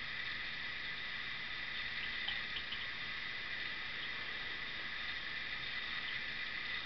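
Steady low hiss of room tone, with a few faint ticks about two and a half seconds in.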